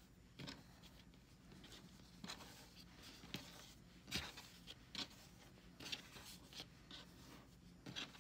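Faint, irregular soft rustles and brushes of fleece strips being handled and pulled against each other while weaving a square knot.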